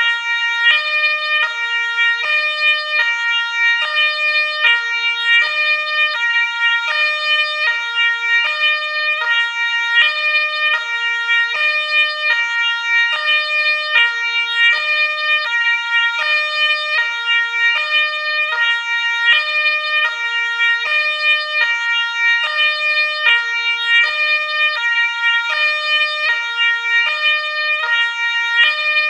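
Ambulance siren sounding continuously in a two-tone hi-lo pattern, alternating steadily between a high and a low note about every half second.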